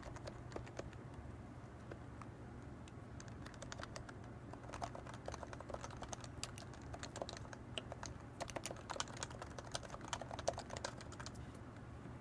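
Typing on a Leopold FC660C keyboard with 45g Topre electrostatic capacitive switches, unlubricated sliders and PBT keycaps: irregular runs of keystrokes, busier and louder in the second half.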